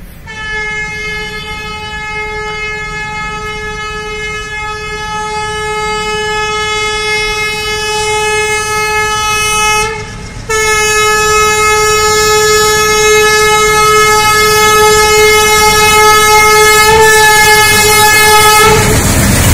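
Diesel locomotive's horn sounding one steady note in two long blasts, with a short break about halfway through, growing louder as the train approaches. Near the end the horn stops and the loud noise of the train passing close by takes over.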